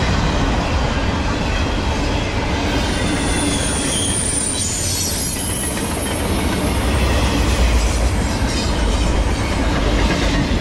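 Empty articulated double-stack intermodal well cars (Maxi-Stack type) of a freight train rolling past: a steady rumble of steel wheels on rail with light clicking over the joints. A thin, high wheel squeal rises about three seconds in and fades a few seconds later.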